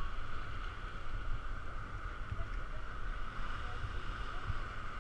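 Sea water sloshing and lapping around an action camera held at the water's surface: a steady low rumble with a constant hiss above it.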